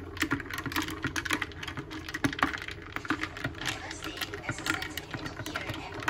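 A metal spoon stirring coffee in a mug, clinking rapidly and irregularly against the sides.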